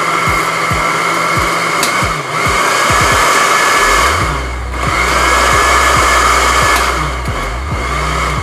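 Countertop blender with a glass jar running, blending a thick banana and peanut-butter shake. The motor note sags three times and each time spins back up with a rising whine.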